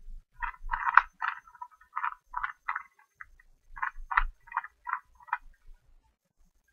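Plastic Rubik's Cube being turned by hand: quick clusters of clicking and clattering as the layers snap round, stopping near the end.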